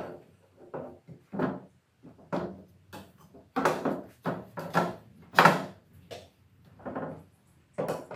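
Wooden parts of a knock-down bookshelf knocking and clunking together and against the table saw top as the side frame is stood up and fitted onto the shelf boards. There are a dozen or so irregular knocks, the loudest about five and a half seconds in.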